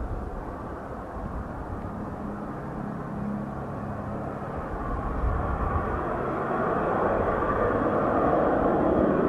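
Pratt & Whitney JT8D turbofans of an approaching Boeing 737-200, a jet rumble that grows steadily louder and brighter as the airliner nears on final approach.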